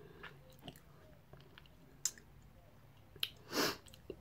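Quiet eating sounds: scattered small clicks and smacks of chewing. About three and a half seconds in comes a short, louder rush of breath.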